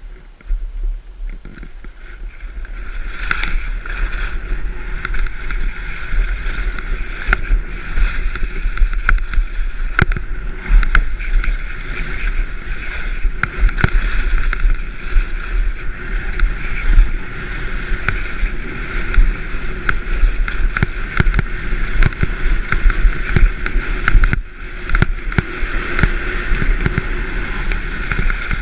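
Wind buffeting a GoPro's microphone, heavy and rumbling, together with skis scraping over packed snow on a fast downhill run. The noise builds over the first few seconds as speed picks up, with scattered sharp clicks and scrapes from the skis.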